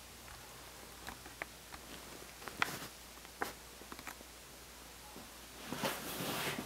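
Quiet room tone with a few faint, sharp clicks and taps scattered through, then a soft rustle a little under six seconds in.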